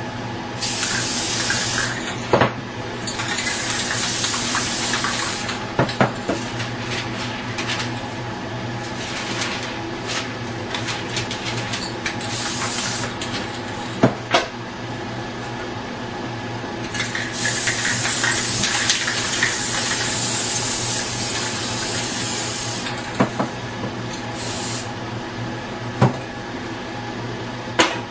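Aerosol spray-paint cans hissing in bursts of a few seconds as paint is sprayed onto a board, over a steady low hum. A few sharp knocks fall between the bursts, the loudest about fourteen seconds in.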